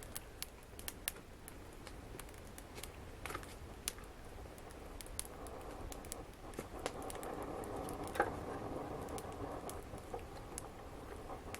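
Wood fire burning in a fireplace: scattered sharp crackles and pops, with a steadier hiss of the flames building from about halfway through. The loudest pop comes about two-thirds of the way in.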